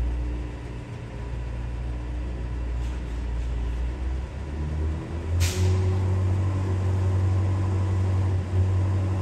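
Garbage truck's diesel engine running steadily, with a short sharp air-brake hiss about five seconds in, after which the engine note grows louder and holds.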